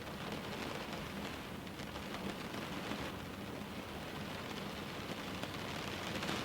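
Steady rain falling, a dense hiss with many small drop patters.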